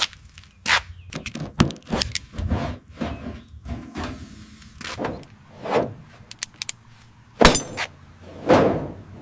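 Irregular series of knocks, clanks and short scrapes, the loudest a sharp ringing knock about seven seconds in and a heavier thud about a second later.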